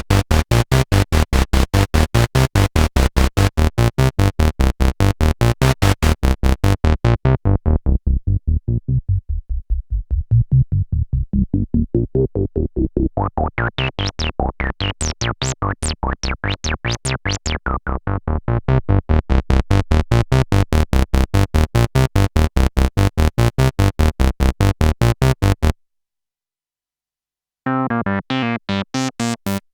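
Behringer MS-1 analog monosynth playing a fast repeating sequence of short, bass-heavy notes. The filter closes down until the notes are dull, then sweeps back open until they are bright and buzzy. Near the end the pattern stops, and after a short gap a new sequence begins.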